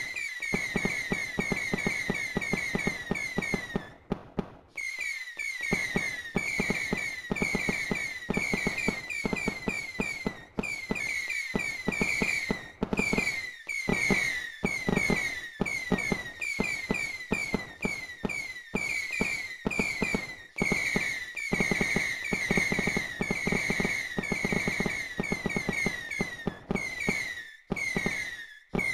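Fireworks going off in a dense, near-continuous run of bangs and crackling pops, mixed with many short falling whistles. There is a brief lull about four seconds in and another near the end.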